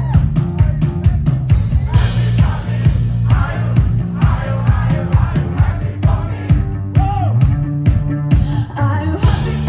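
A song with a steady drum beat, a bass line and a singing voice.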